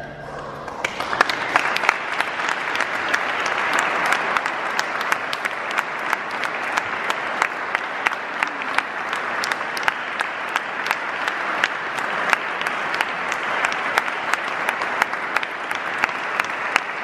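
Audience applauding. The clapping starts about a second in, as the tail of the final organ chord dies away, and then holds steady.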